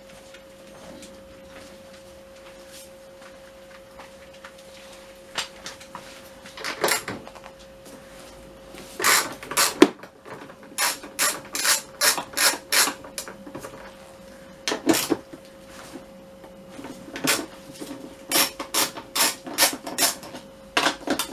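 Ratchet wrench clicking as bolts on the scooter's bodywork are worked loose, in runs of quick sharp clicks with short pauses between them.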